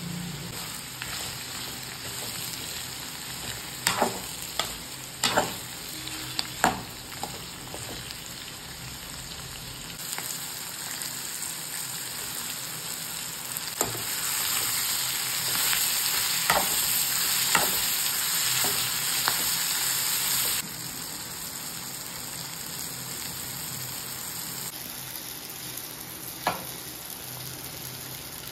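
Chopped bottle gourd and onion sizzling in hot oil in an aluminium kadai, with a metal spoon clinking and scraping against the pan a handful of times as the vegetables are stirred. The sizzle is louder for several seconds in the middle.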